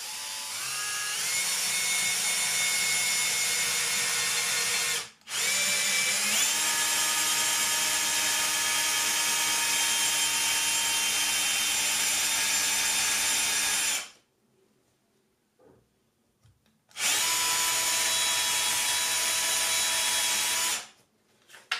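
Cordless drill driver boring a 10 mm hole through a small wooden part with a metal twist bit, in three runs: about five seconds, about eight seconds, then after a short pause about four more. The motor whine is steady, climbing in pitch as it speeds up at the start of the first two runs.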